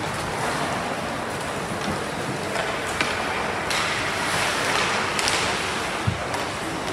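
Ice hockey play on a rink: skate blades scraping and carving across the ice in short hissing strokes, with a sharp knock about three seconds in and a dull thud about six seconds in.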